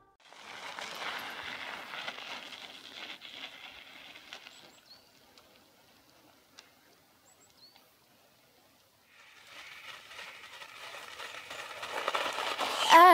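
A fat tyre rolling and crunching through snow, fading away in the first few seconds, then building steadily as it comes near again in the last few seconds. A few faint high chirps sound in the quiet middle.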